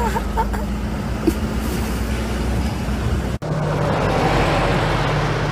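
Engines of a military vehicle convoy driving on a dirt road: a steady low drone. It drops out for an instant a little past halfway, then comes back as a fuller, even hum.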